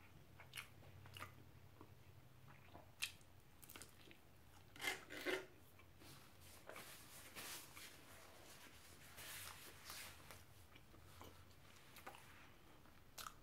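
Quiet eating sounds: soft chewing and mouth noises with a few small clicks, and a faint rustle of hands handling food in a paper tray.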